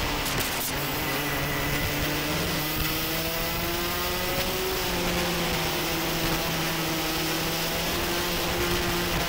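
Racing kart engine running at high revs from on board, with a steady rush of wind noise; its pitch climbs slowly as the kart accelerates, then the engine note jumps to a steadier tone about halfway through.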